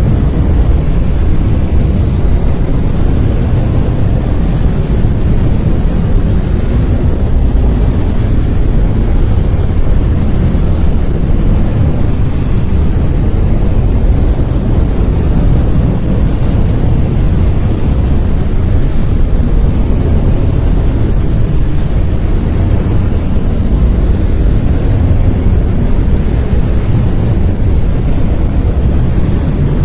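Steady brown noise: an even, deep rumbling hiss with most of its weight in the low end and little in the highs, unchanging throughout.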